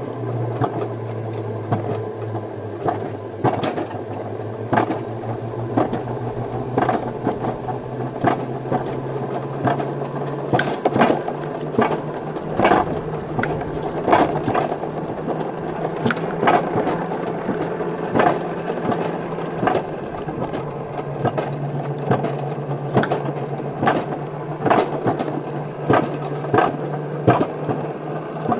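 Wiegand alpine coaster sled running along its raised tubular steel rails: a steady humming run, its pitch stepping up about a third of the way in, with a constant stream of sharp clicks and knocks as the wheels cross rail joints and supports.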